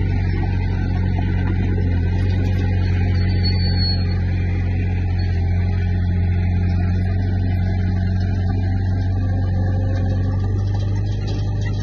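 Komatsu D20P bulldozer's diesel engine running steadily with an even low drone.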